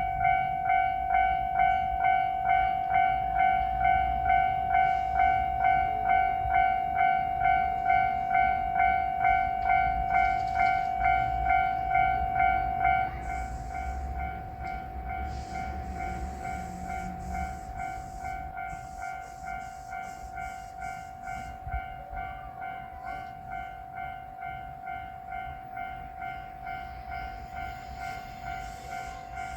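Japanese railroad level-crossing warning bell ringing its repeating 'kan-kan' tone at about two strikes a second, dropping to a quieter setting about 13 seconds in. A low rumble runs beneath, from a JR Shikoku 1500-series diesel railcar running through the crossing.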